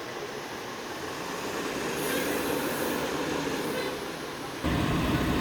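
Street traffic noise: a steady rush of passing vehicles. About four and a half seconds in it changes abruptly to a louder, deeper engine rumble.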